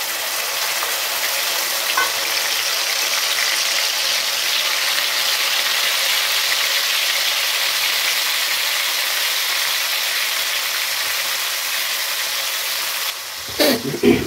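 Ground spice paste (masala) sizzling in hot oil in a pan: a steady, loud frying hiss.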